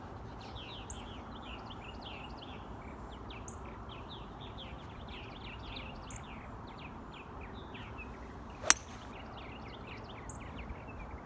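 Many small birds chirping in quick, short falling calls over a steady low rumble of wind on the microphone. About two-thirds of the way through comes a single sharp crack, much the loudest sound: a golf club striking the ball.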